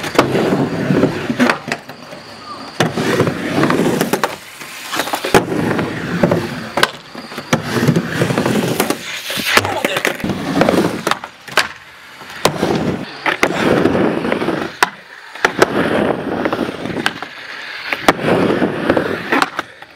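Skateboard riding a mini ramp with metal coping: wheels rolling back and forth in repeated swells every couple of seconds, with sharp clacks as the board hits the coping and the deck slaps the ramp.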